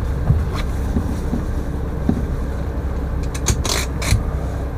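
Low, steady rumble of an RV rolling slowly onto a ferry's car deck, heard from inside the cab. A brief cluster of sharp clicks and scrapes comes about three and a half seconds in.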